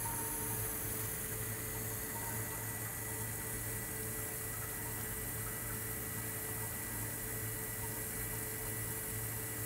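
Steady low electrical hum with a faint high whine and hiss, from the running electric column still and its water-cooled condenser.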